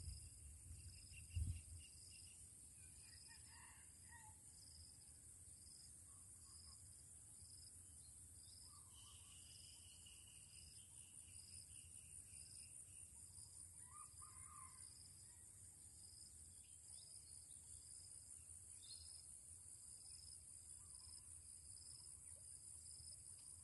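Near silence with a faint insect chorus: a steady high drone and a pulsing call repeating about once a second, with a few faint bird chirps. A single soft low thump comes about a second and a half in.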